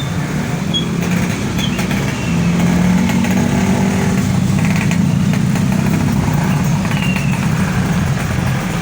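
Diesel engine of a large intercity bus running close by, a steady low rumble that grows louder about two seconds in.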